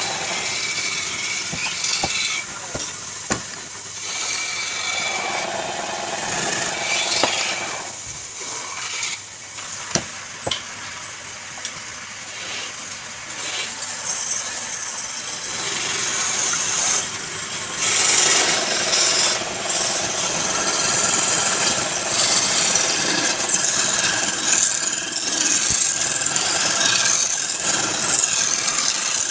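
A turning tool scraping against wood spinning on a lathe: a rough, hissing scrape that comes and goes with a few sharp ticks. It is quieter for a stretch in the middle and louder and steadier in the last third.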